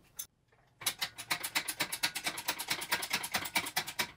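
Chain hoist clicking rapidly, about ten even clicks a second, as it lifts a heavy cast-iron milling machine column, starting about a second in.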